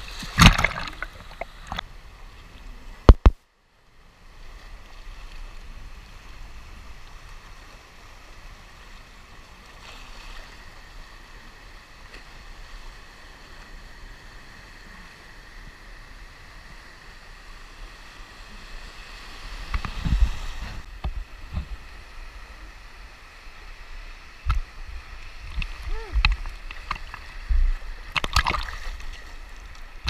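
Sea waves washing over a camera held at water level in shallow surf, sloshing and gurgling. There are louder splashes about half a second in and repeatedly through the last ten seconds.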